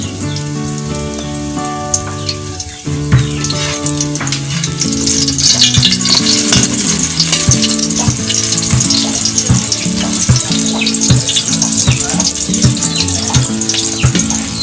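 Okra sizzling and crackling as it fries in hot oil in a wok. The sizzle jumps up about three seconds in, when beaten egg goes in for an okra torta, and stays busy after that.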